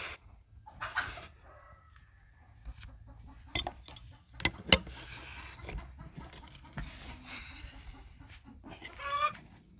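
Sharp metallic clinks of an adjustable wrench being handled and set on a tractor's front wheel hub nut, the loudest about halfway through. A chicken clucks in the background, with a short call near the end.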